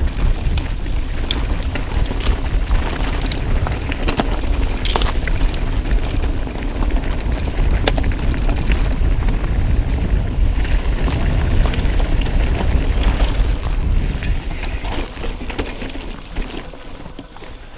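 Wind buffeting an action camera's microphone, with scattered knocks and rattles, as a mountain bike is ridden down a rough dirt trail; it eases off near the end as the bike slows.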